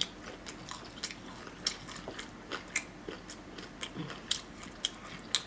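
Close-miked chewing and mouth sounds of a person eating: irregular short wet clicks and crunches, several a second.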